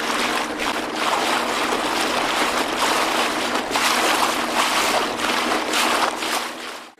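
Rushing, splashing water noise around a small boat on open water, steady with irregular swells and fades.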